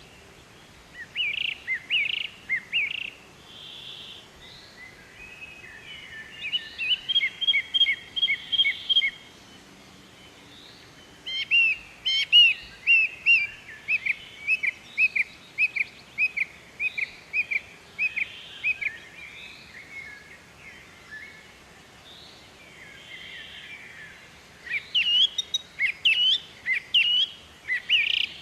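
Songbirds chirping and twittering in quick bouts of short, high notes, with pauses between the bouts.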